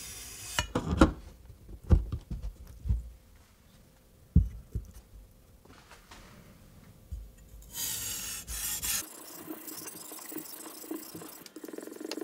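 Several dull knocks in the first few seconds as sharpening stones are swapped on a wooden workbench. Then, after a brief hiss, a Damascus steel chef knife blade is stroked back and forth on a whetstone in an even rubbing rhythm.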